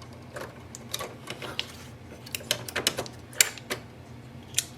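Irregular plastic clicks and taps as ink cartridges are handled and pressed into an Epson ET-2400 printer's print head carriage, the sharpest click about three and a half seconds in.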